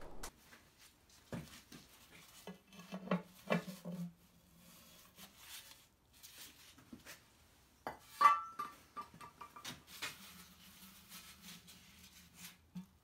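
Metal engine parts and an aluminium sump being handled and set down on an engine block: scattered clinks and knocks, with one sharper metallic clank that rings briefly about eight seconds in. A faint low hum comes and goes.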